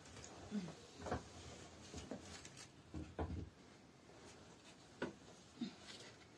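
Faint, scattered knocks and clicks of objects being handled and set down, with a couple of heavier thumps about a second in and again around three seconds.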